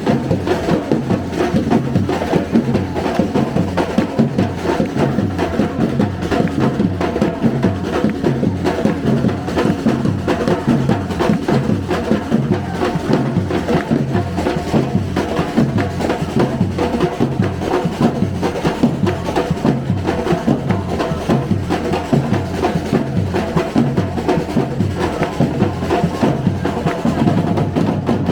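Live street band playing, with drums and percussion keeping a steady beat under held pitched notes.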